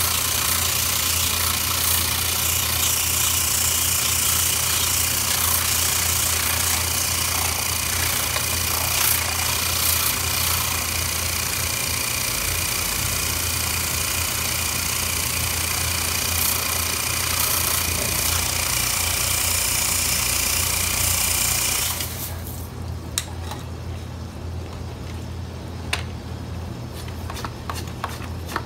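A motor running with a loud, steady hissing rush over a low hum. The rush cuts off suddenly about three-quarters of the way through, leaving a quieter hum with scattered light clicks and taps.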